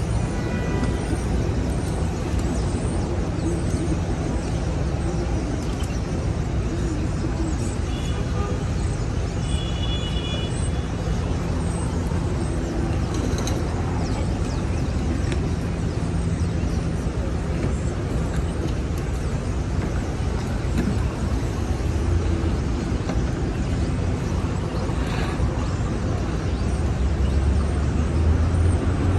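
Busy city street ambience: a steady rumble of traffic and passing vehicles, with a few brief high tones about eight to ten seconds in.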